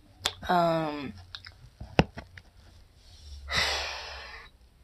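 A woman's short falling hum near the start, a sharp click about two seconds in, then a long breathy sigh lasting about a second that trails off.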